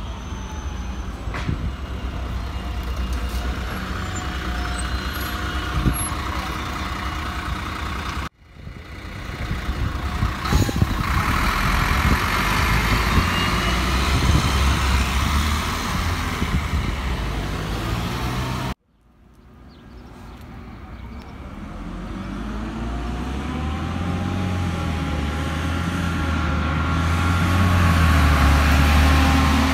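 City bus engines moving off: a Solaris Urbino city bus running as it pulls away, then a red city bus accelerating past, its engine getting louder and rising in pitch to a peak near the end. The sound breaks off abruptly twice, about 8 and 19 seconds in.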